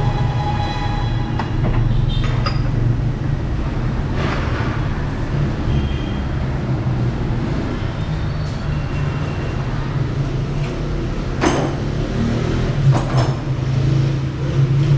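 Steady low rumble of vehicle noise, with two sharp metallic knocks near the end.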